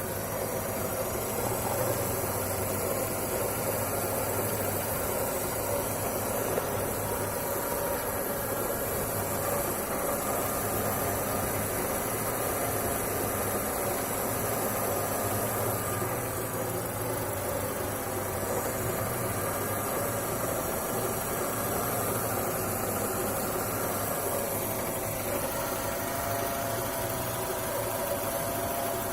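Car engine idling steadily with a faint metallic hum and rustle carrying a steady whine, which the owner suspects comes from a worn power steering pump bearing.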